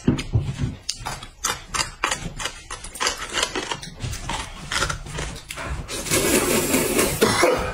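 Close-miked eating sounds: quick wet chewing and lip clicks, then a longer slurping of noodles that builds over the last few seconds.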